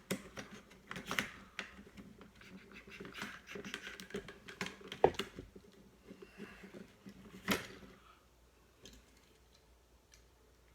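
Drill bits and tools being handled and sorted, a run of small clicks, rattles and scrapes with sharper knocks about five and seven and a half seconds in, stopping about eight seconds in.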